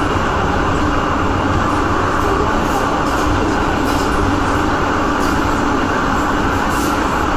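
MTR M-train, a Metro-Cammell electric multiple unit, running through an underground tunnel: a loud, steady rumble of wheels on rail and running gear, with the tunnel's roar, heard from inside the car.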